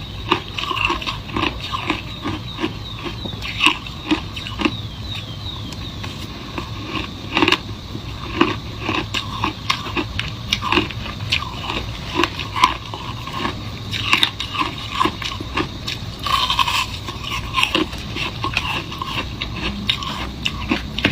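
Shaved ice being bitten and chewed, crunching in many irregular crackles, with some scraping.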